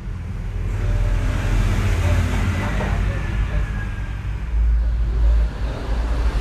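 A road vehicle passing by, its noise swelling and then fading over a few seconds over a steady low rumble.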